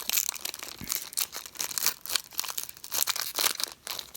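Foil trading-card pack wrapper crinkling and tearing as it is pulled open, an irregular run of crackles.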